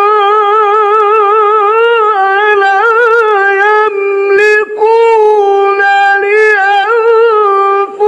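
A man's voice chanting Quran recitation in the drawn-out melodic tajweed style, holding long notes with rapid wavering ornaments. It breaks off briefly about halfway and again near the end.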